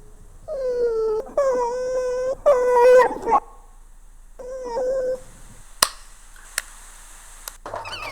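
Four whimpering, dog-like cries, each about a second long and holding a steady pitch, followed by three sharp clicks spaced about a second apart.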